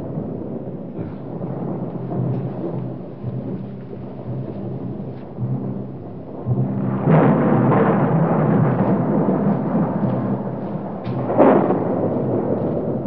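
A deep, continuous rumble that swells suddenly about seven seconds in and again near the end.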